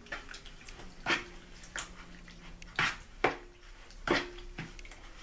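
A utensil stirring thick, wet tomato sauce in a plastic mixing bowl, with irregular knocks and scrapes against the bowl's side, about seven in all.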